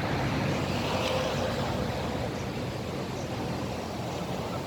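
Steady rush of traffic on a multi-lane expressway, cars passing continuously.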